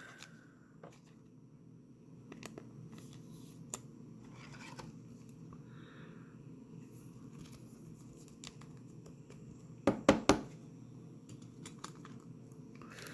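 Quiet handling of a trading card and a rigid plastic top loader as the card is slid in, with light scraping and scattered small clicks. A brief louder cluster of knocks about ten seconds in.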